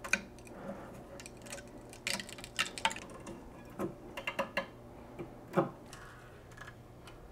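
Light clicks, taps and scrapes of a razor blade and hands on the glass baffles of an aquarium sump, cutting the silicone seams to free the filter-sock holders. A handful of short, sharp clicks come in small clusters, the loudest a little over halfway through.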